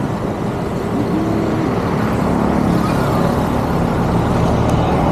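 Motor vehicle engine running steadily, with a constant low hum and noise.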